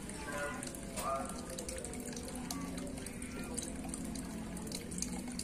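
Water trickling and dripping steadily, with many small drip ticks over a low steady hum.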